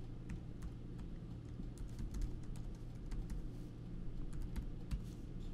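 Typing on a computer keyboard: quick keystroke clicks in short, irregular runs, over a faint low steady hum.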